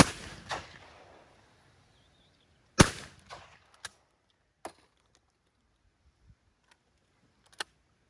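Two shotgun shots about three seconds apart, fired at a report pair of clay targets. Each shot is followed by a short echo. Then come a few lighter clicks.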